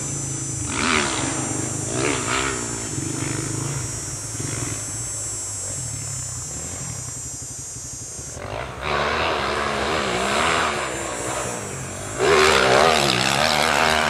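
Yamaha YZ450F's single-cylinder four-stroke engine revving up and down repeatedly as the dirt bike is ridden over the jumps, getting louder near the end.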